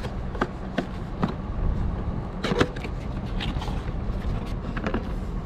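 Drinking glasses being handled and brought out, giving a series of light clicks and knocks, over a steady low rumble.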